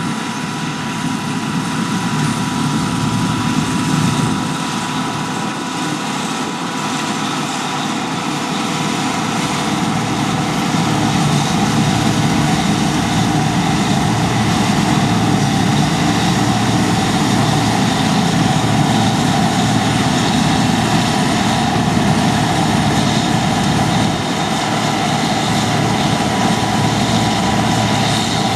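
John Deere 2264 combine harvester running while cutting barley: a steady engine and machinery drone with a few constant whining tones over it, growing louder about ten seconds in.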